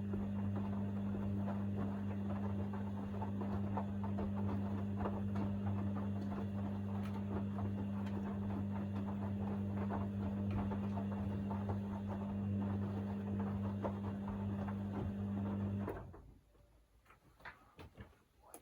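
Hoover DynamicNext washer-dryer in the main wash of a 60° cycle: the drum motor runs with a steady hum while the wet laundry tumbles and sloshes in the drum, then the motor cuts off suddenly near the end for a pause between tumbles, leaving a few faint clicks.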